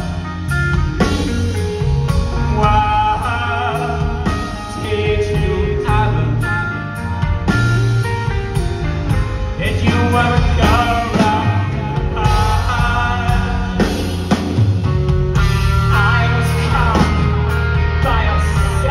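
A rock band playing live with a male lead singer, over acoustic guitar and a full band with a heavy low end, heard from the audience in a concert hall.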